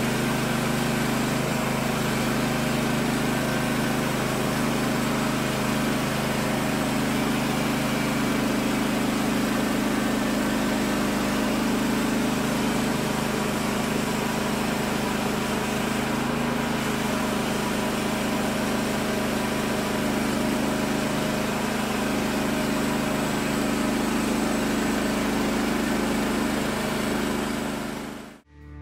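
Woodland Mills HM130 Max portable bandsaw mill running steadily with its engine under load as the band blade saws through a large Douglas fir log. The sound cuts off abruptly near the end.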